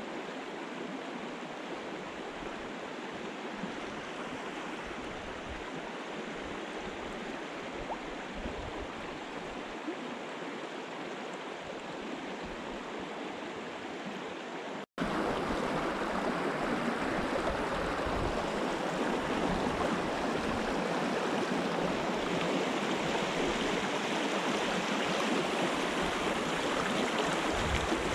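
Shallow river running over a riffle: a steady rush of water that cuts out for an instant about halfway through and comes back louder.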